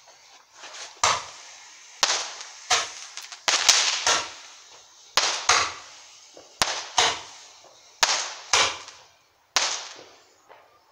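Firework going off in a run of about fourteen sharp bangs at irregular intervals, each trailing off quickly in a short hiss.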